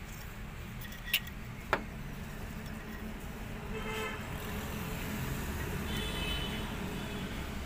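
A vehicle horn toots briefly twice, the second higher than the first, over a steady low traffic rumble. Two sharp clicks come a little after a second in.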